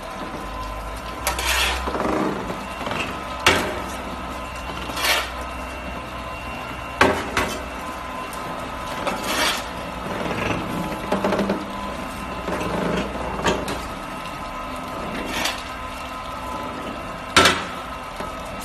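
Screw compactor dewatering machine running: a steady hum from its drive motor and gearbox, with irregular metallic clanks and knocks every second or two.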